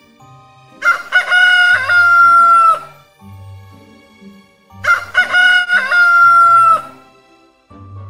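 Rooster crowing twice, each crow about two seconds long and ending in a long held note.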